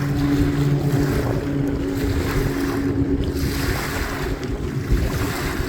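Propeller plane's engine droning steadily as it comes in low to land on the water, fading out over the first few seconds as it drops behind trees, with wind buffeting the microphone throughout.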